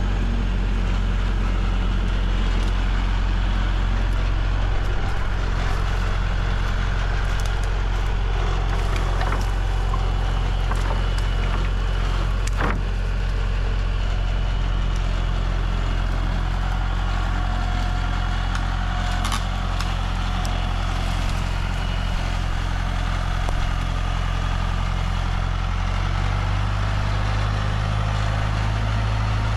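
A vehicle engine running steadily at low speed, with a few faint clicks and knocks over it; its note changes near the end.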